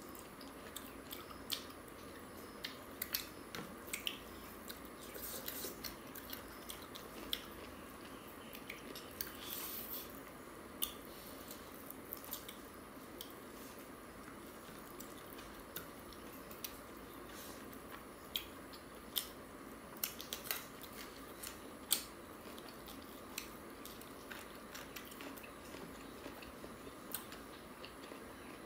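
Close-up eating sounds as chicken curry and rice are eaten by hand: irregular chewing, biting and sharp mouth clicks, over a steady low background noise.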